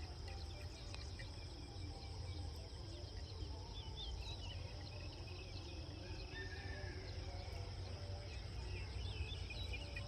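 Rural outdoor ambience: a steady high-pitched insect drone with many short bird chirps scattered over it, and a steady low rumble underneath.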